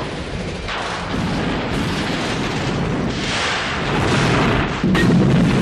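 Runaway diesel locomotives crashing through a caboose at speed: a dense, loud rumble of wreckage and train noise, with a sharp heavy impact about five seconds in.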